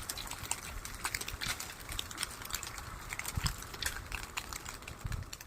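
Tamarind pods dropping from a shaken tree, landing in many small irregular clicks and ticks, with a few dull thumps from heavier falls.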